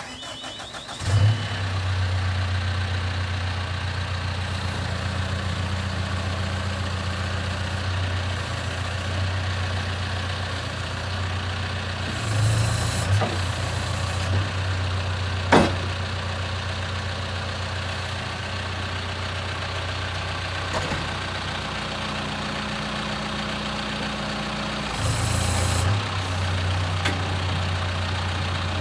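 A 2012 John Deere backhoe's diesel engine starts about a second in, then idles steadily. It briefly picks up twice with a hiss, once around the middle and once near the end, and there is a single sharp click just after the middle.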